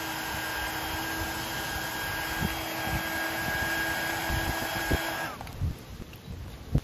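Mini 300 W heat gun running, a steady whir and rush of air with a faint whine, heating the thick adhesive tape under a GoPro mount; it switches off about five seconds in. A single thump near the end.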